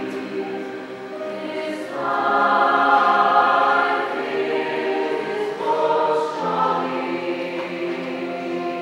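A chamber choir singing in sustained chords, swelling to its loudest about two to four seconds in, easing off, then rising briefly again a little past halfway.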